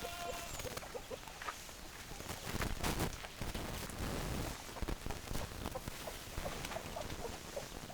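Hens clucking, a scatter of short low clucks all through, with a brief call right at the start. There are louder rustling noises about two and a half to three seconds in.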